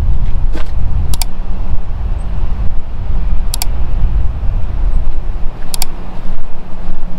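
A steady low outdoor rumble, with sharp mouse-click sound effects about one, three and a half and six seconds in, timed to the on-screen subscribe, share and comment buttons.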